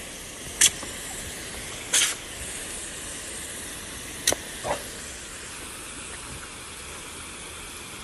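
Garden hose spray nozzle shooting a steady hissing jet of water, with four short sharp sounds over it in the first five seconds.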